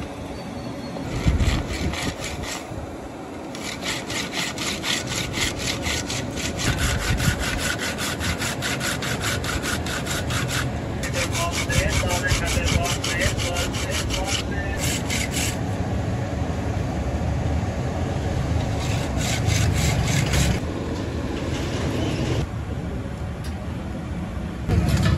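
Hand saw cutting a wooden knife-handle block, in runs of quick, even strokes with pauses between runs.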